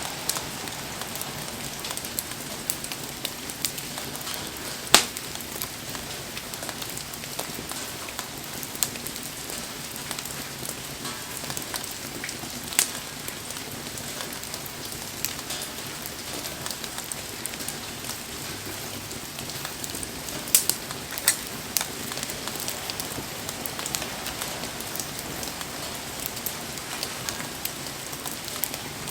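Steady rain falling around a wood campfire, with the fire crackling and a few sharp pops, the loudest about 5 seconds in and a pair about 21 seconds in.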